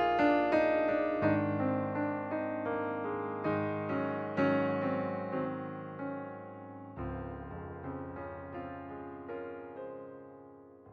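Background piano music: a slow, gentle melody of single notes that gradually fades out near the end.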